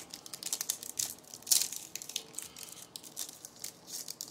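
Wrapper of a 2021 Topps Series 1 baseball card pack being torn open and crinkled: an irregular run of sharp crackles, loudest about one and a half seconds in.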